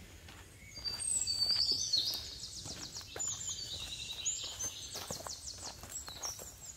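A songbird singing, a run of high whistled notes and fast trills starting about a second in and loudest early, over the hiker's footsteps on a rocky dirt trail.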